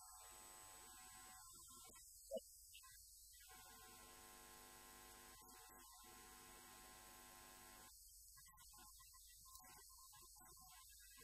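Near silence with a faint steady electrical hum, broken once, a little over two seconds in, by a short sharp blip.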